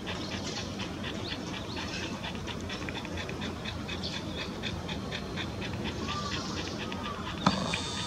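A flock of white-cheeked starlings, many of them brown juveniles, chattering in a rapid run of short harsh notes, with a few rising calls about six seconds in. A louder, higher hiss comes in suddenly near the end.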